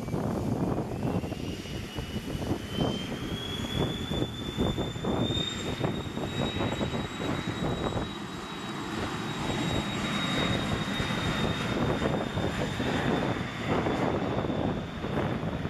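Small business jet's turbofan engines spooling up for the takeoff roll: a whine that rises in pitch over the first six seconds or so, then holds steady over a rushing engine roar. Wind buffets the microphone throughout.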